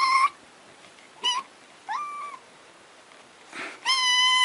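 Kitten meowing in high-pitched cries: three short meows, one rising, then a longer held meow near the end.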